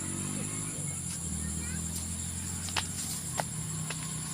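Steady high-pitched drone of crickets over a low steady hum, with a few sharp clicks around three seconds in.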